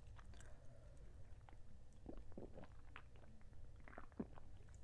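Faint chewing: soft, scattered wet mouth clicks of someone eating a chicken drumstick, over a low steady hum.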